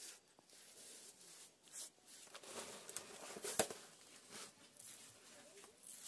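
Faint, irregular swishes of a short grass hand broom sweeping spilled ragi (finger millet) grains across a smooth mud floor, with grains pattering into a woven bamboo tray. A sharp tick about three and a half seconds in is the loudest sound.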